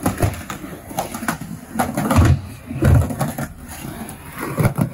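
Skateboard being ridden: a few sharp clacks and two heavier low thumps about two to three seconds in, spaced irregularly.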